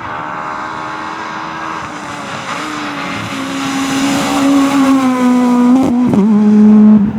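Rally car engine held at high revs and coming closer, growing steadily louder, with a short break in the engine note about six seconds in; it is loudest just before the end.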